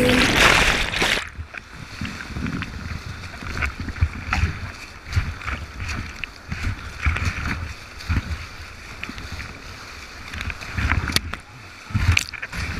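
Whitewater river churning around an action camera in a waterproof housing during a swim in the rapids. A loud rush in the first second gives way to muffled water noise with irregular low knocks and splashes as the camera bobs under and over the surface. A sharper splash comes near the end.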